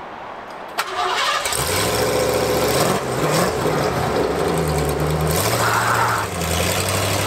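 A 1967 Ford F100's modern Ford V8, heard from behind at the exhaust, cranks and fires about a second in, then settles into a steady idle. Its pitch rises and falls briefly about three seconds in.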